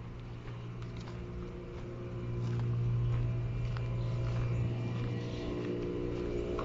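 Outdoor air-conditioning units running with a steady electrical hum, growing louder about two seconds in as the camera comes up beside them. Faint footsteps on gravel tick now and then.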